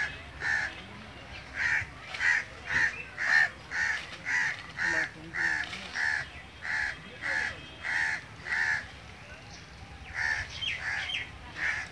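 House crows cawing in a long run of harsh, evenly spaced caws, about two a second, with a short lull near the end before a few more. These are the alarm calls of crows gathered over a downed crow.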